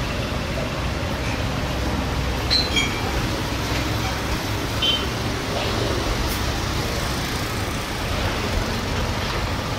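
Airbus A320 jet engines running at taxi power: a steady rumble blended with general airport noise, with brief high chirps about two and a half and five seconds in.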